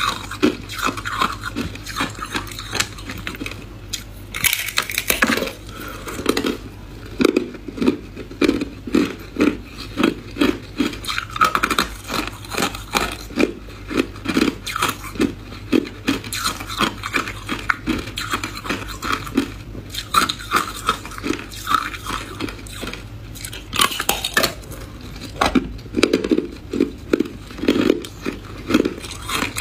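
A slab of clear, hard ice being bitten and crunched between the teeth. It is chewed in a steady run of crunches about twice a second, with louder sharp cracks about five seconds in and again near twenty-four seconds.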